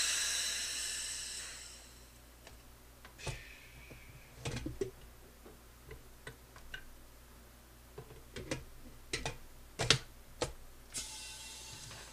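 Acrylic-curing pressure pot being filled with compressed air: a loud hiss that starts at once and fades away over about two seconds. Scattered light clicks and knocks follow, with a fainter hiss near the end.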